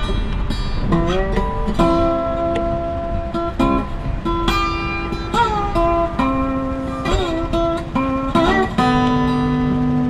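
Background music: a melody of held notes that bend and slide in pitch over a low, steady accompaniment.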